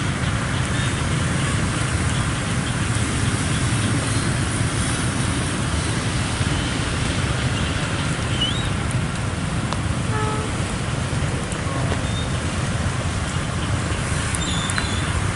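Steady traffic noise of many motorcycle engines at a railway level crossing as the waiting riders move off over the tracks.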